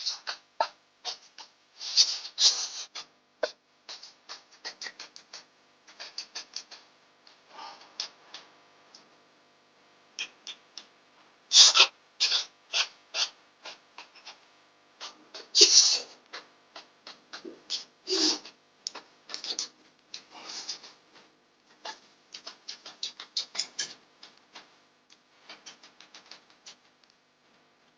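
Close-miked chewing and lip smacking of someone eating: an irregular run of quick, wet clicks and smacks, with a few louder bursts about 12, 16 and 18 seconds in.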